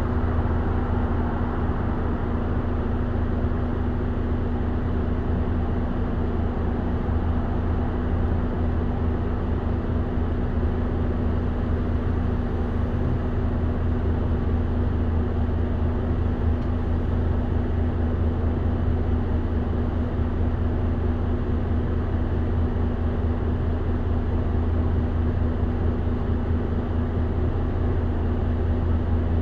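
Mitsubishi Fuso Aerostar city bus's four-cylinder diesel idling steadily while the bus stands still, heard from a front seat inside the cabin as an even low hum.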